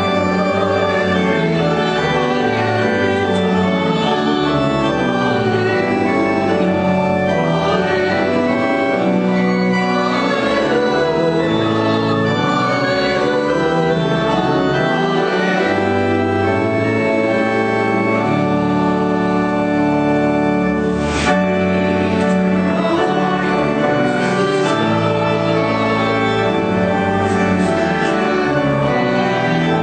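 A congregation singing a hymn with organ accompaniment, in steady sustained chords.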